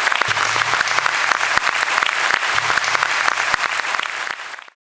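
Audience applauding, a dense clatter of many hands clapping that fades out and stops about four and a half seconds in.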